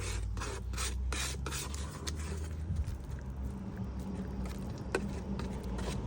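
Spreader scraping through long-strand fiberglass body filler as it is mixed with its activator, in quick strokes about twice a second for the first second and a half. Then softer rubbing with a couple of sharp clicks near the end.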